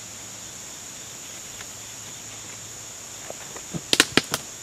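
Steady high-pitched chirring of crickets and other insects in the woods. Near the end comes a quick cluster of four or five sharp clicks and rustles as the man moves and stands among the leaves and logs.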